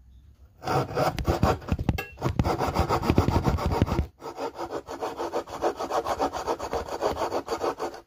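Flush trim hand saw cutting a tenon shoulder in walnut with quick back-and-forth rasping strokes, starting about half a second in. After about four seconds the strokes turn lighter and thinner.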